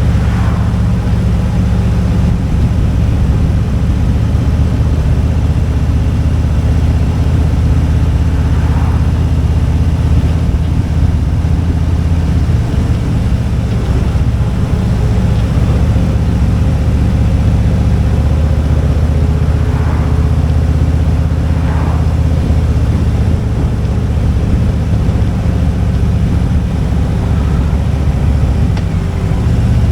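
Motorcycle engine running steadily on the move, with a constant rush of road and air noise.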